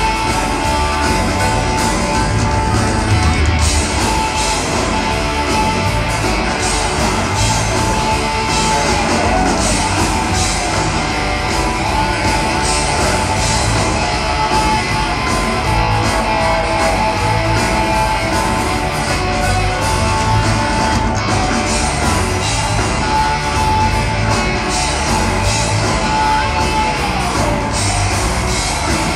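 Live blues-rock band playing loud, with electric guitar leading over drums and bass, heard from the audience in a large hall.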